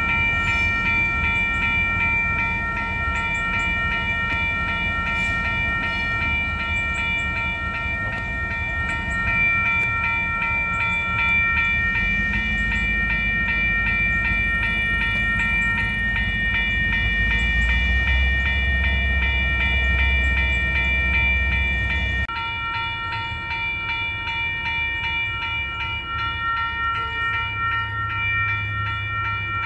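Railroad crossing bell ringing steadily at a rapid, even rate at an active crossing. Under it, a Union Pacific diesel locomotive's low rumble builds as the train approaches, then a train of tank cars rolls through the crossing.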